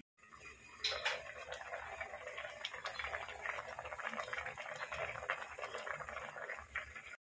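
Fish curry boiling hard in a wide aluminium pan, a dense, steady bubbling and spitting. Two sharp clinks sound about a second in.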